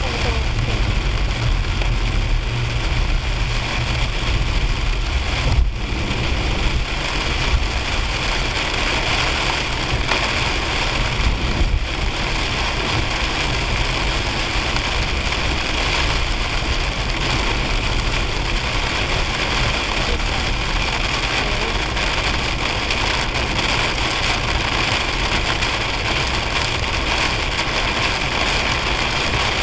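Rain beating on a car's windshield and roof, heard from inside the cabin, over a steady rumble of tyres and engine on the wet road.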